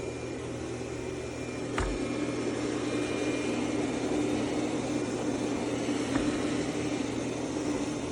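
Roborock Qrevo Pro robot vacuum running, a steady whirring hum with a constant tone, with a sharp knock about two seconds in and a fainter one about six seconds in.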